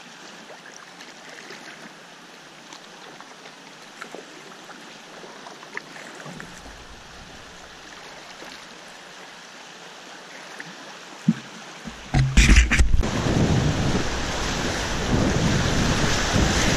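Flowing river water hissing steadily, with a few small splashes; about twelve seconds in, the rush of whitewater rapids swells suddenly and stays loud as an inflatable kayak enters them.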